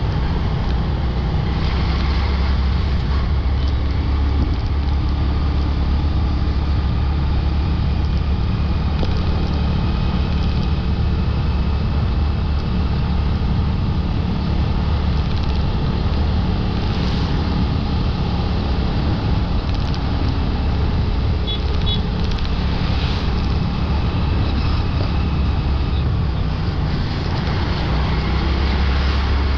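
Motorbike riding through road traffic: a steady engine drone under a constant low rumble, with other vehicles around it.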